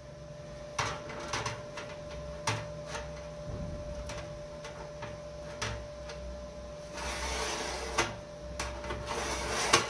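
Sheet metal and a steel straight edge being handled while a line is marked out: scattered light clicks and knocks, with a stretch of scraping about seven seconds in. A faint steady hum runs underneath.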